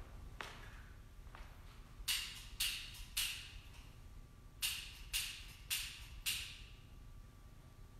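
A few footsteps, then seven sharp ringing strokes of a small bell in two groups, three and then four, about half a second apart, each dying away quickly.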